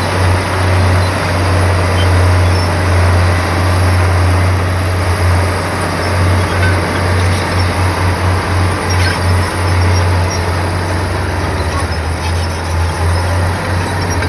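Diesel engine of heavy earthmoving machinery running with a steady low drone and a broad rushing noise over it; about halfway through the drone begins to waver and pulse quickly, as the engine comes under changing load.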